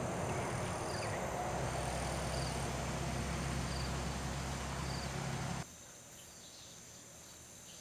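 Outdoor ambience of steady insect buzzing over a steady hiss and low hum, with a short high chirp repeating about once a second. About five and a half seconds in, the sound cuts abruptly to a much quieter, fainter background.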